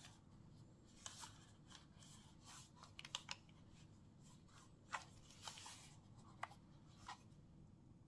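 Faint, scattered clicks and taps of a plastic DJI drone remote controller being handled and turned over in the hands.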